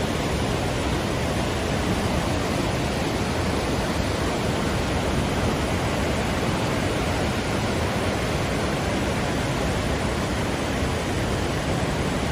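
Steady, even rushing of a large waterfall.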